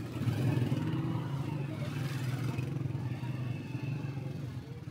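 Small motorcycle engine running at a steady low speed, heard from on the bike as it rides along.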